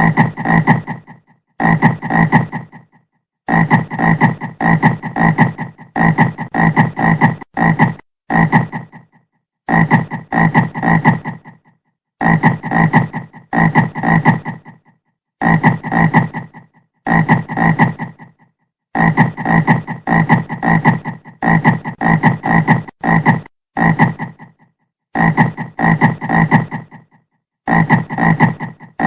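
A frog croaking: short calls, each under a second, repeated about once or twice a second in runs broken by brief silent gaps.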